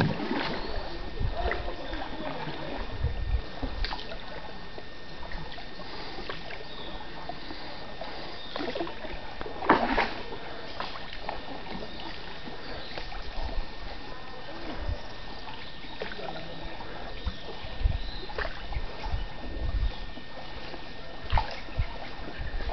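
Wooden canoe being paddled along a calm river: paddle strokes dipping and splashing in the water, with occasional low thumps.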